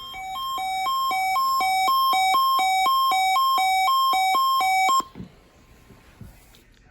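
NOAA Weather Radio warning alarm for the weekly test: an electronic two-tone beeping that alternates high and low about twice a second. It swells in over the first second and cuts off abruptly after about five seconds.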